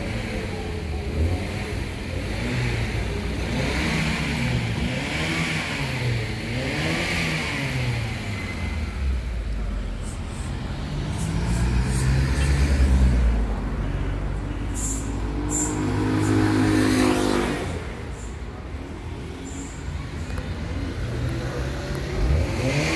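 Motor vehicles on the street, their engines rising and falling in pitch as they accelerate and change gear, with a loud low rumble about halfway through.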